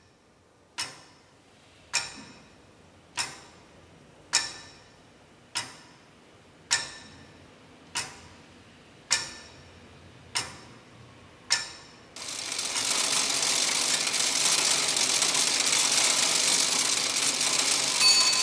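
Clockwork mechanism: loud single ticks about every 1.2 seconds, each ringing briefly. About twelve seconds in, a dense, steady clatter of whirring gears and ratchets takes over, with bell-like ringing tones near the end.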